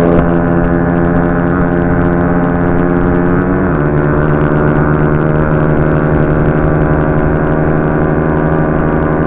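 Euro Vipperman 150's 150cc single-cylinder engine held at high revs under full throttle, its pitch dropping once about three and a half seconds in, as with an upshift, then holding steady, with wind rumble on the microphone.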